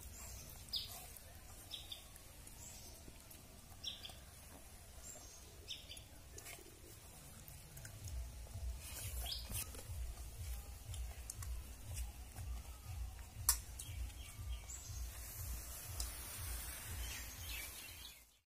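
Birds chirping now and then over a faint outdoor background, with a few sharp clicks. A low rumble joins about halfway through, and the sound cuts off just before the end.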